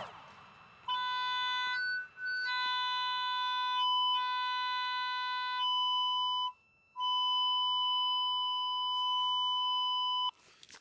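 Cable locator receiver sounding a steady electronic tone in several stretches broken by short gaps, its timbre shifting between stretches, as it is swept over the ground picking up the transmitter's signal on the buried fibre duct.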